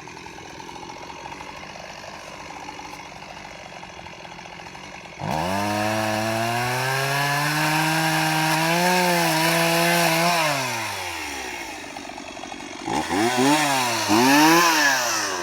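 Two-stroke chainsaw idling, then throttled up suddenly to a high steady whine held for about five seconds before dropping back. Near the end it gives about three quick revs, rising and falling.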